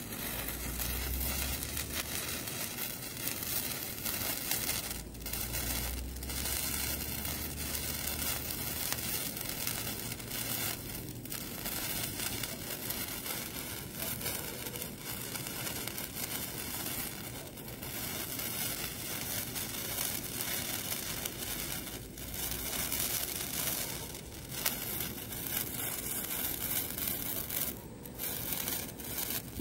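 15 cm colour sparklers burning on their wires with a steady crackling hiss, which drops away briefly every few seconds.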